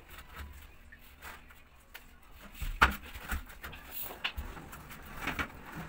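Mostly quiet, with one sharp knock a little under three seconds in and a few fainter taps after it, from a framed shower enclosure panel being handled.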